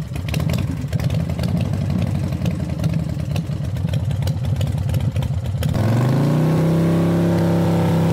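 Motorcycle engine running with a rough, crackling note, then revving up about six seconds in and holding at high revs before cutting off abruptly.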